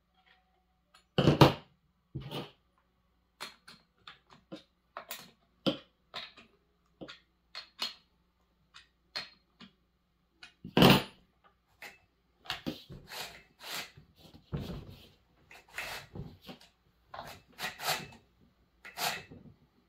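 Irregular metal and plastic clicks and knocks from hands working on a Proyama chainsaw's bar and chain, fitting and adjusting them on the saw body. There is a louder clunk about a second in and another near eleven seconds, and the clicking gets busier in the second half.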